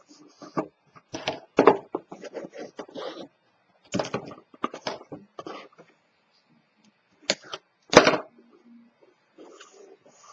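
Stiff cardstock being handled, folded and pressed down on a cutting mat: irregular paper rustling, scraping and sharp taps, with the loudest clacks about two seconds in and about eight seconds in.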